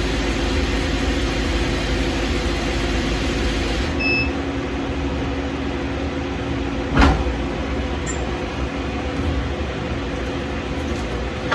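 Steady machine hum with a constant low tone, changing abruptly about four seconds in, and a single sharp knock about seven seconds in.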